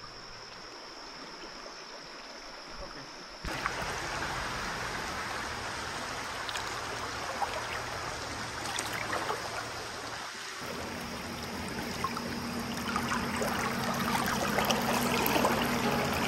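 Shallow river water running over rocks in a riffle, a steady rushing hiss that starts abruptly a few seconds in and carries on. Before it, a quieter stretch with a faint steady high-pitched tone.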